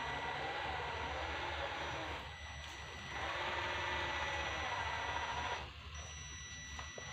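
A radio-controlled truck's electric motor and gearbox whining, the pitch rising and falling with the throttle. It eases off twice, about two seconds in and again near the end.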